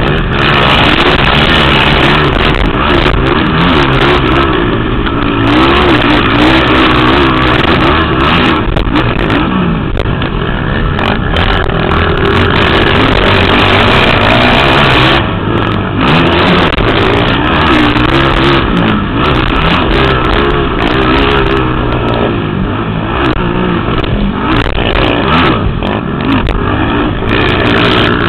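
Racing quad engines at full race pace, their pitch rising and falling over and over as the throttle opens and closes and the gears shift.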